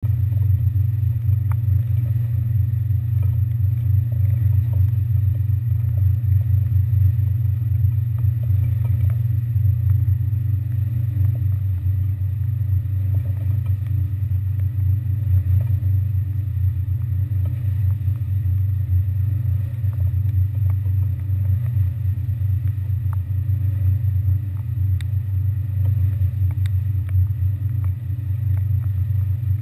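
Steady low drone of a ferry's engines running, with a few faint ticks scattered through.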